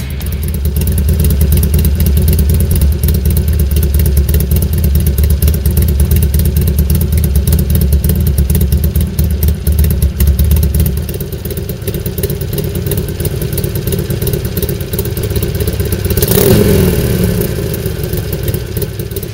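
Harley-Davidson Sportster Iron 883's air-cooled V-twin idling through a Patriot Defender exhaust with a deep, steady rumble. About eleven seconds in the low rumble thins out. A short rev rises and falls about sixteen seconds in, with the exhaust's butterfly set to ON near the end.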